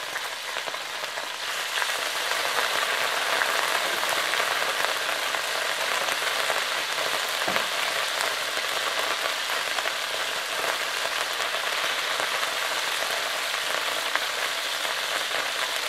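Pieces of pork sizzling in hot oil in a wok, a steady frying hiss that grows louder about two seconds in as more pieces go into the pan.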